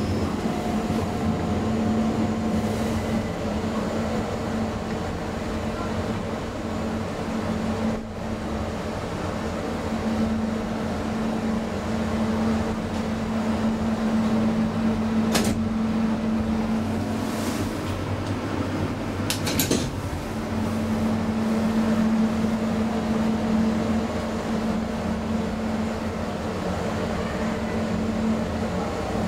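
KONE M traction elevator car travelling through its shaft: a steady hum from the machine, broken by a couple of short sharp clicks a little past halfway.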